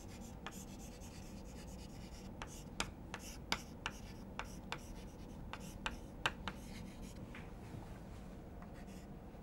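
Chalk writing on a blackboard: faint scratching with a string of short sharp taps as the chalk strikes and lifts, most of them between about two and seven seconds in.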